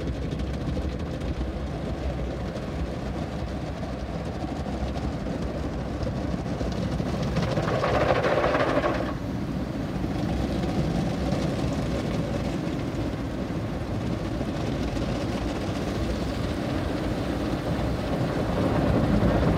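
Automatic car wash heard from inside the car: rotating brushes scrubbing and water spraying over the windshield, roof and sides, a steady rushing noise that grows louder for about a second around eight seconds in.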